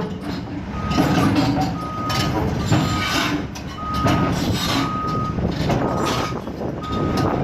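Backup alarm beeping about once a second, one steady tone per beep, over the loud running of heavy diesel machinery.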